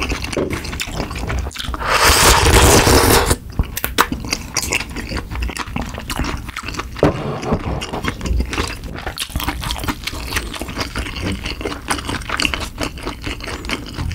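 Close-miked eating sounds: a loud slurp of udon noodles about two seconds in, lasting a second or so, then wet chewing with many small mouth clicks.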